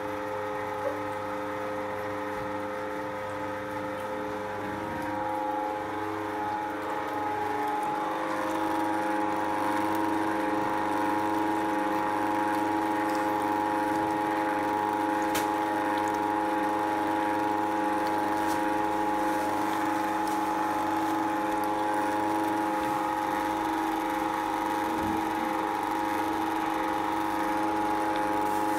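Electric meat grinder running steadily while it minces meat and lung, a constant motor hum that grows louder about eight seconds in.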